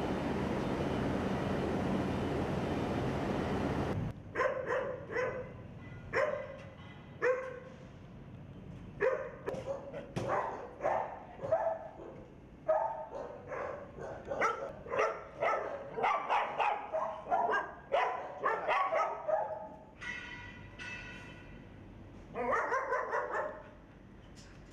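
A steady rushing noise cuts off about four seconds in. Then dogs in shelter kennels bark again and again, fastest in the middle, with a high drawn-out whine and a last short run of barks near the end.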